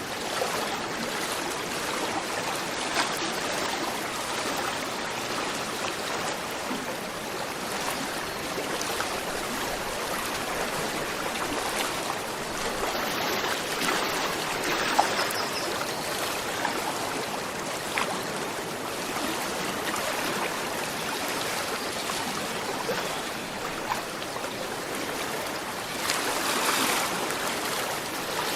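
Gentle river flowing steadily: a continuous rush of water with small trickling splashes, swelling slightly near the end.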